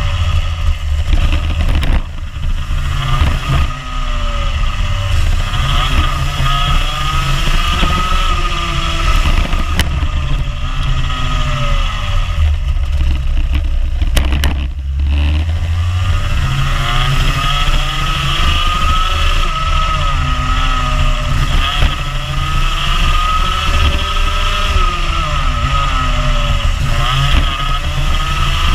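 Rotax Junior Max 125 cc two-stroke kart engine heard onboard at racing speed, its pitch climbing hard on the straights and falling away each time the driver brakes for a corner. About halfway through there is a deeper, longer drop for a tight turn before it winds back up.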